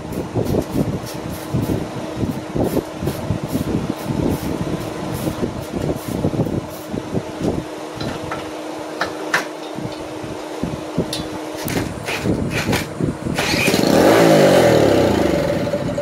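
A 200cc minibike engine running roughly on gas poured down the carburettor, with irregular pops, then stopping about twelve seconds in. Near the end a passing vehicle swells and fades.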